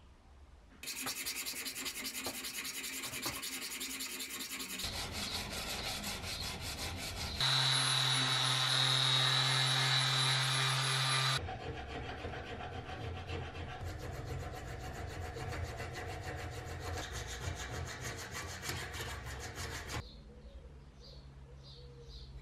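Hand file rasping back and forth on the steel jaws of a rusty antique French adjustable wrench, in several short stretches of quick, regular strokes. In the middle comes about four seconds of a louder, steady power tool running.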